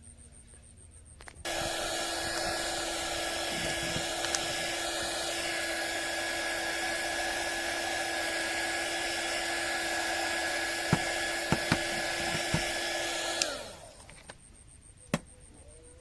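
Hot air gun's blower running steadily with a hissing rush and a constant hum. It switches on abruptly about a second and a half in and winds down with a falling tone near the end, followed by a few light clicks.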